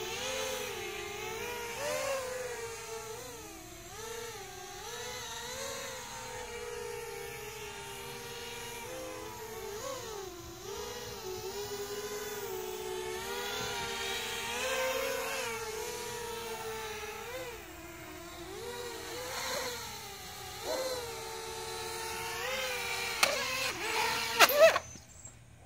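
XHover 230 FPV racing quadcopter's motors and propellers whining, the pitch wavering up and down as the throttle changes. Near the end there are a few sharp knocks, then the motor sound stops.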